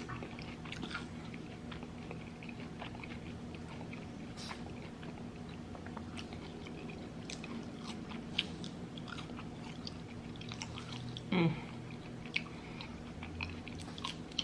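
A person chewing and biting food, with many small scattered clicks and a brief vocal sound falling in pitch about eleven seconds in.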